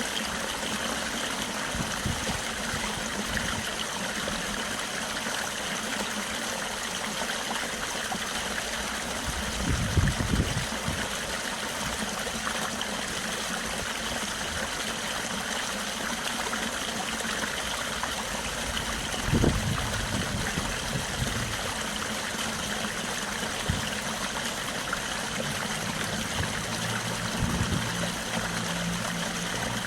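A stream flowing steadily with an even rushing hiss. A low rumble swells briefly twice, about a third and two-thirds of the way through, and a low engine-like hum comes in near the end.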